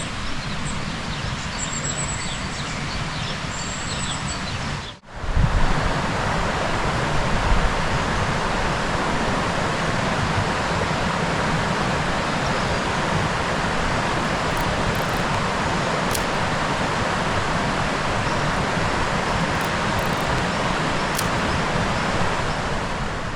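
Steady rushing of a fast mountain river, with a few short bird chirps in the first seconds; an abrupt cut about five seconds in brings a slightly louder, unbroken rush of water.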